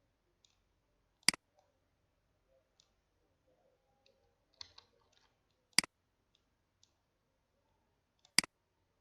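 Computer mouse clicking: three sharp single clicks, spaced a few seconds apart, with a softer quick cluster of clicks in between.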